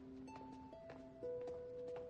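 Quiet background music: a slow melody of held notes stepping down in pitch, with faint light plucks.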